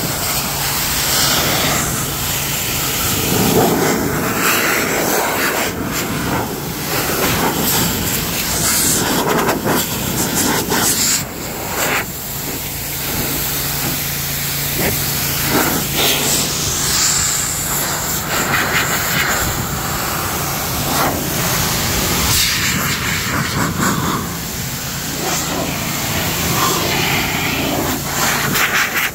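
Handheld car-drying blower running, a loud steady rush of air over a low motor hum, blowing water off wet car paint.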